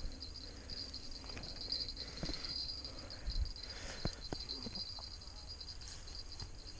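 Steady high insect chirring from the grassy bank, with scattered light clicks and rustles as a spinning rod is handled among reeds and branches.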